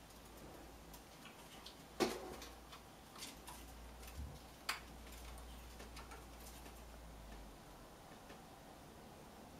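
A few scattered sharp clicks and knocks of kittens' claws and paws on the wooden branches of a cat tree as they climb, the loudest about two seconds in.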